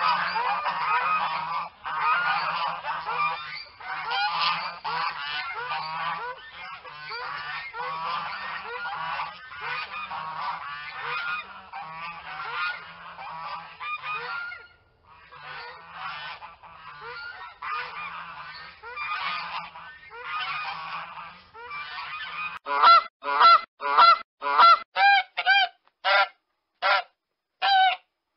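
Geese honking: many calls overlapping one another for most of the time, then, about 23 seconds in, loud separate honks at roughly two a second.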